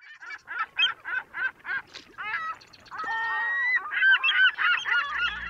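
Birds calling: a quick run of short calls, about three a second, then a longer held call about three seconds in and a flurry of overlapping calls near the end.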